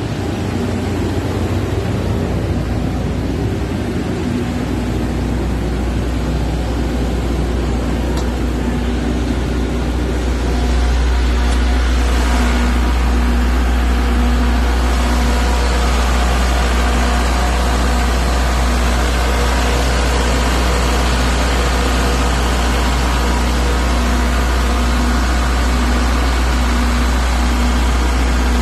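Diesel generator set running steadily, a deep even hum with the engine's noise over it. It gets louder about ten seconds in, close to the open engine enclosure.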